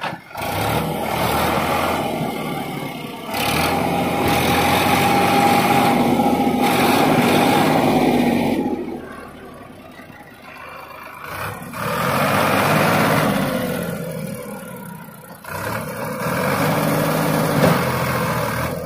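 Sonalika DI 740 tractor's diesel engine working hard under load while the tractor is stuck in mud, revving up in long surges and easing back twice, about halfway through and again near the end.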